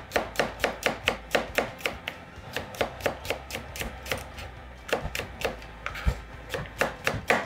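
Chef's knife slicing garlic cloves on a cutting board: a steady run of quick knife taps on the board, about four or five a second.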